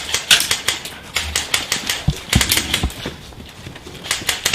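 Bursts of rapid sharp clicks, about ten a second, with a few dull thumps near the middle.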